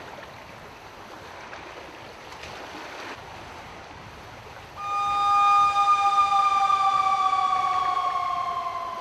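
A steady hiss, then about five seconds in a loud two-note horn starts and is held, its pitch sinking slowly.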